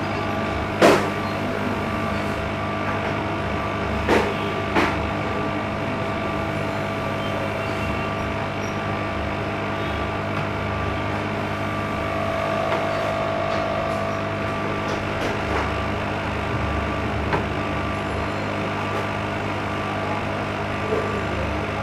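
Hot-air rework station blowing steadily onto a phone board's power IC to melt its solder, a continuous airy hiss with a faint electrical hum. A few sharp clicks about a second, four seconds and five seconds in.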